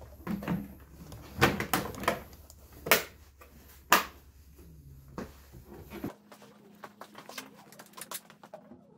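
Hard plastic handlebar cover of a Daelim VF100 scooter being pressed and snapped into place on the handlebar: a handful of sharp plastic clicks and knocks, loudest about one and a half and four seconds in. Lighter clicks follow over the last few seconds.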